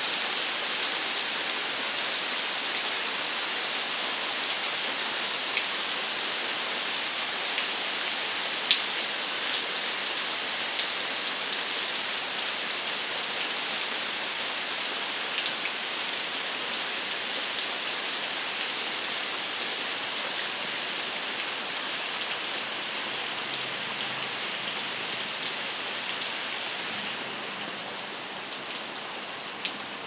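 Steady rain falling on tree foliage, with scattered sharper drop hits; it eases a little near the end.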